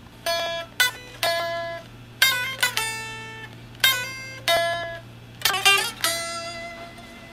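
Electric guitar picking a melody one note at a time: about a dozen single notes in short groups, each struck sharply, ringing and fading, over a faint steady hum.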